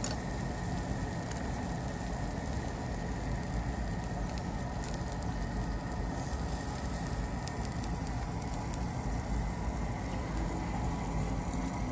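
Food sizzling on a tabletop barbecue grill: a steady crackling hiss with a few faint ticks, over a constant low rumble.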